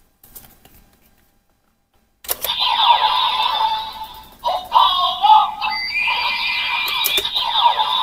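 Bandai DX Kamen Rider belt buckle toy sounding off through its small built-in speaker, with electronic sound effects and music that start suddenly about two seconds in. The sound has sweeping pitch glides, a brief stretch like a voice and a held tone near the end. Before it starts there is faint handling of a plastic card.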